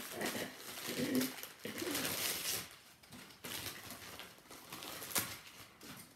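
Gift wrapping paper crinkling and rustling as small wrapped items are unwrapped by hand, busiest in the first half. A short low hummed voice sound comes about a second in, and a sharp tap a little after five seconds.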